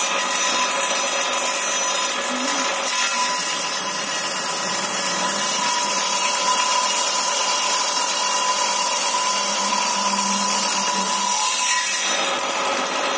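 Table saw with a Bull circular saw blade ripping a knotty wooden board lengthwise. The blade spins free at first and starts cutting about three seconds in. It cuts steadily for about nine seconds, then spins free again near the end.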